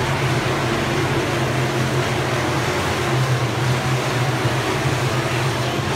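Engines of dirt-track modified race cars running at speed around the oval, a steady, unbroken low drone.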